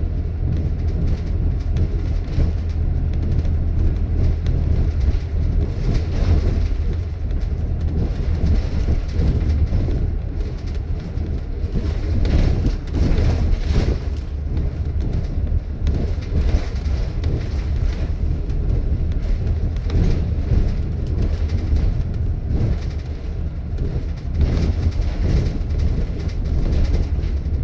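Inside a double-decker bus on the move: a steady low rumble of engine and road noise, with scattered rattles from the body and fittings.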